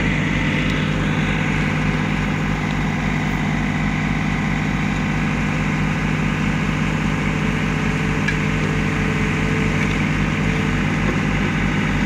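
Compact John Deere tractor's three-cylinder Yanmar diesel engine running steadily at an even speed.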